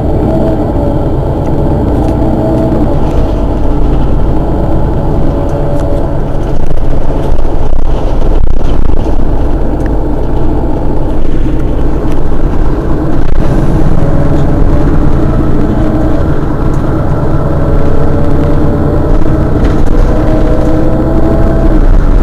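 Mercedes-Benz Citaro city bus's rear-mounted diesel engine idling steadily while the bus stands still. It gets somewhat louder about six or seven seconds in and stays that way.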